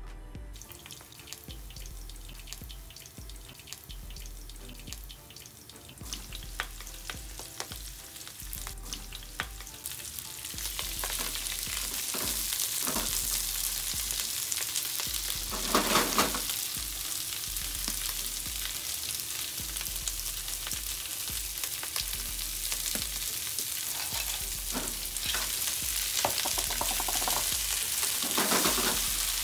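Sliced garlic sizzling gently in oil in a frying pan, growing into a louder steady sizzle after about ten seconds as napa cabbage fries. The cabbage is moved around by hand, with a loud rustling burst around the middle, and near the end clams clack as they are laid on top of the cabbage.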